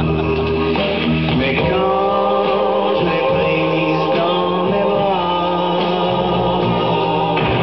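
A song with a man singing over instrumental backing, with long held notes.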